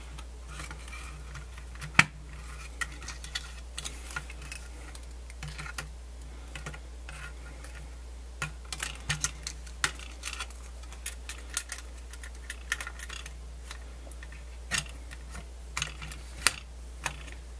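Small plastic clicks and taps of a Sony D-142CK CD Walkman's chassis and circuit board being handled and fitted back together by hand. The clicks come irregularly, with a sharper one about two seconds in and quick runs of clicks near the middle and near the end.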